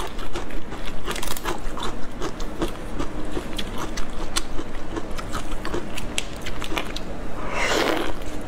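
Shell of a giant soy-sauce-marinated tiger prawn crackling and clicking as gloved hands pull it apart, close to the microphone. A louder wet bite comes near the end.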